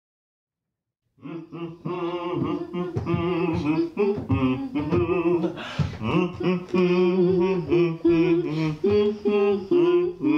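Singing voices, a held, melodic vocal line starting about a second in after a moment of silence.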